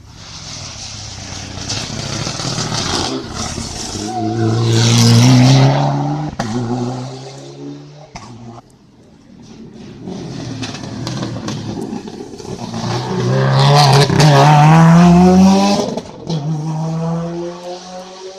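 Racing car engines accelerating hard on a hill climb course. The pitch climbs and drops back at each upshift, with two loud passes about nine seconds apart.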